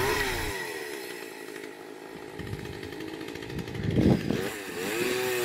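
Chainsaw engine running and revving up and down. It drops quieter for a couple of seconds, revs up again about four seconds in, then settles into a steady run near the end.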